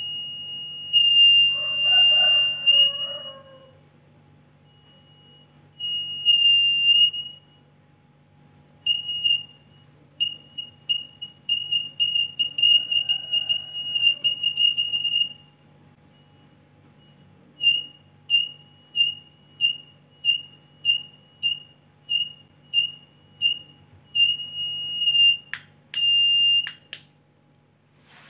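Small electronic buzzer of a homemade light-sensor (LDR) alarm sounding a single high beep that switches on and off as the flashlight beam falls on and leaves the sensor. It gives long tones at first, then a quick run of short beeps, then about one beep a second. A few sharp clicks come near the end.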